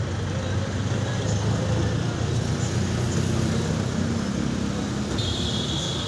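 Steady low rumble of motor vehicle engines and traffic. A thin high steady whine starts about five seconds in.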